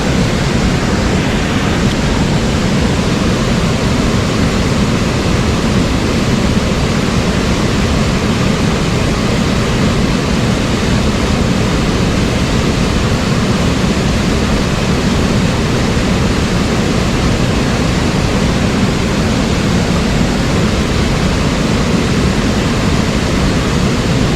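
Steady rushing of a mountain stream, running water over rocks, with a heavy low rumble and no change in level.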